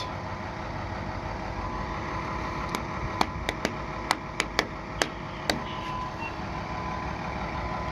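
Fire truck engine idling steadily. A run of about nine sharp, irregular clicks comes in the middle.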